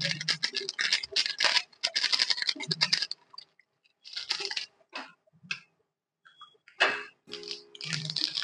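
Crinkling and tearing of a small plastic spice sachet being worked open by hand, dense for the first few seconds, then in shorter bursts.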